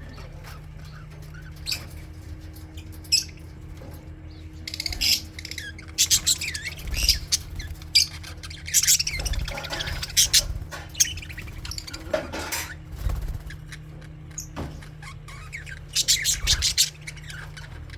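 Budgies chirping and warbling in quick, irregular flurries of short high calls, busiest in the middle of the stretch and again near the end, over a steady low hum.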